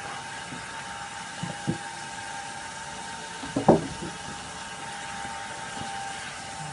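A machine running with a steady, even hum, broken by a few short knocks, the loudest a double knock a little past halfway.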